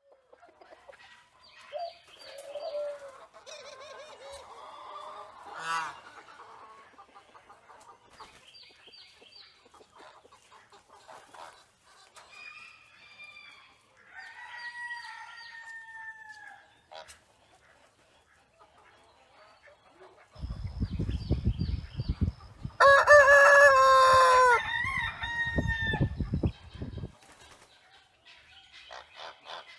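Chickens clucking and calling, with scattered short calls and several drawn-out falling calls. Near the end a rooster crows loudly for about two seconds, over a low rumble.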